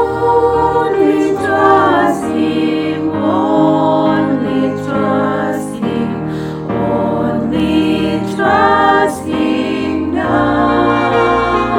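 A vocal group singing a gospel hymn in harmony, with long held notes.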